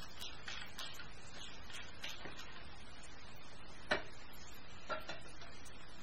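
Metal clamps, bolts and hand tools clinking against a milling machine's steel table as a machined gearbox adapter plate is unclamped: a run of light clicks, then a sharper knock about four seconds in and another a second later.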